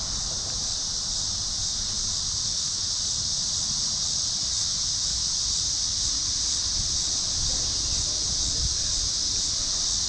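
Steady, high-pitched chorus of insects droning without a break, with wind rumbling on the microphone.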